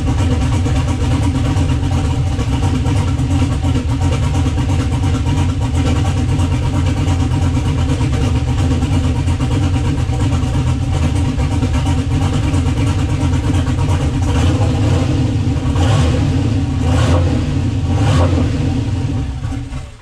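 GM 6.0-litre LS V8 running steadily, being test-run after its fuel injectors were swapped to cure a dead miss on three cylinders. A few brief louder surges come near the end, and it cuts off right at the end.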